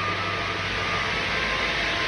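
Steady mechanical noise with a low hum, like machinery or ventilation running.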